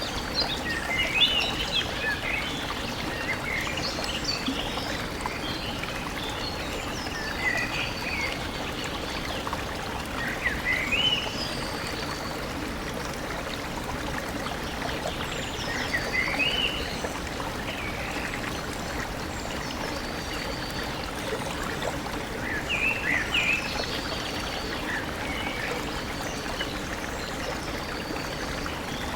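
A stream running steadily, with small birds calling over it in short chirping phrases every few seconds and thin high whistled notes now and then.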